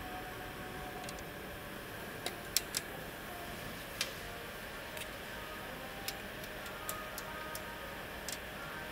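About ten light, irregularly spaced metallic clicks as hydraulic lash adjusters and rocker arms are fitted together and set into the aluminium cylinder head of a Kia G4NA engine, over a steady workshop hum.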